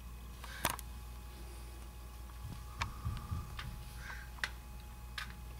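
Scattered sharp clicks and a few soft knocks over a steady low hum: handling noise from a hand-held camera filming through a window.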